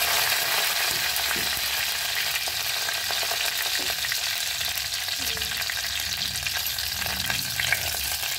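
Fresh curry leaves sizzling steadily in hot oil with shallots and dried red chillies in a clay pot, the tempering stage of a Kerala curry. A spoon stirs through the pan with small scrapes and clicks.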